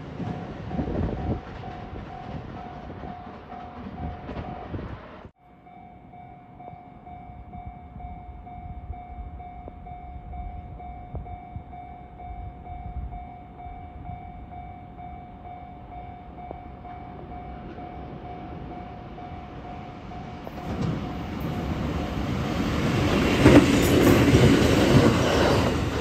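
Level-crossing warning bell ringing steadily as a single repeating tone, while a 521 series electric train approaches. About 21 seconds in the train's rumble and wheel clatter rise, and it passes loudly near the end.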